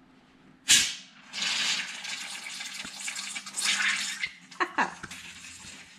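Lid of a jar of fermented kimchi being cracked open: a sudden loud hiss a little under a second in as built-up fermentation gas escapes, followed by a few seconds of uneven fizzing and gurgling as the brine bubbles over.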